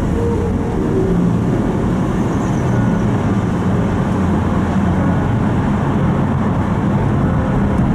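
Steady low rumble of a car moving on the road, heard from inside the cabin.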